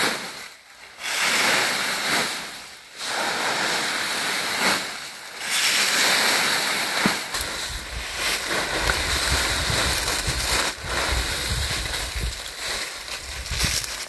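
Dry fallen leaves rustling and crackling as they are scooped up by hand and gathered into an armful, in repeated swells.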